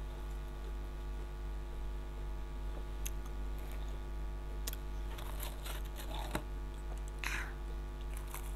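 Potato crisps being handled and eaten: a few sharp clicks, then short crackly crunches about five seconds in and again near the end as the crisps are bitten and chewed. A steady electrical hum runs underneath.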